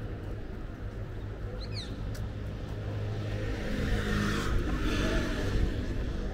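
Street traffic: a steady low engine hum, with a vehicle passing and swelling louder about four to five seconds in. A brief high chirp sounds near two seconds.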